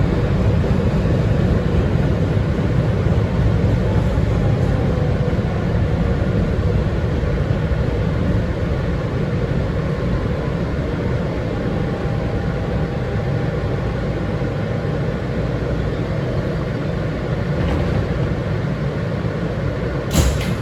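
R160B Siemens subway car running between stations, heard from inside the car: a steady rumble of wheels on rail. A faint steady tone comes in briefly mid-way, and there is a single sharp click near the end.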